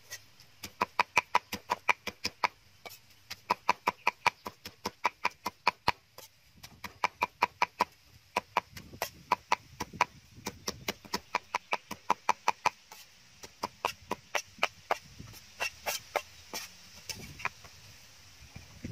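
A cleaver chopping raw meat on a wooden chopping block, mincing it: quick, even knocks about five a second, in runs with short pauses between.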